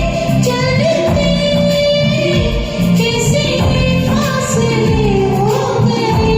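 Hindi film song performed over a backing track with a steady beat, a female voice singing long held, gliding notes.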